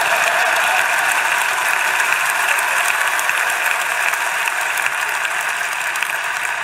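Theatre audience applauding, a long run of steady clapping that eases off slightly toward the end.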